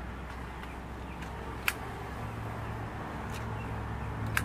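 A steady low engine hum, growing a little stronger about halfway through, with two sharp clicks, one about a second and a half in and one at the very end.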